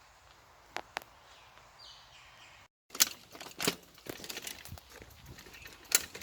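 Quiet outdoor background with two sharp clicks, then after a short break, irregular footsteps: knocks and scuffs on a path, a few of them sharp and loud.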